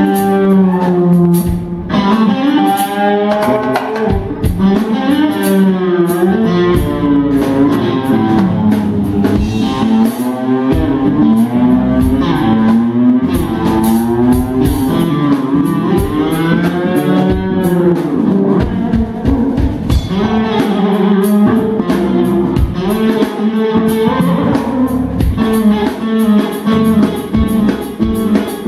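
Live rock instrumental: an electric guitar plays a lead melody full of pitch bends and vibrato over bass guitar and a drum kit.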